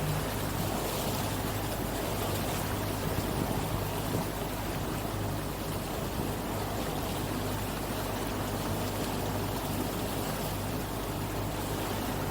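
Motorboat under way: the engine runs with a steady low hum beneath a constant rush of water along the hull.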